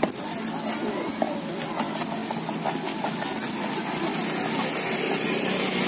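Steady outdoor street background of vehicle engines and faint distant voices, with one sharp knock right at the start.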